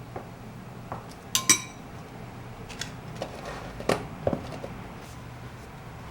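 Dishes and cutlery clinking and knocking in a series of separate light strikes. The loudest, about a second and a half in, is a ringing clink like a spoon against a ceramic cup or glass.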